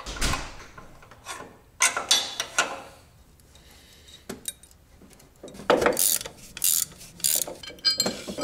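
Hand ratchet clicking in short spurts, with metal clinks of wrench on bolt, as the motor mount bolts on the LS engine block are worked loose. A knock opens it, there is a quieter spell in the middle, and the ratcheting comes thickest in the second half.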